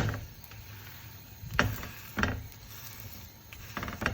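A spatula knocking and scraping against a flat dosa griddle while a paratha fries: four short, sharp strokes, unevenly spaced, over a faint steady low hum.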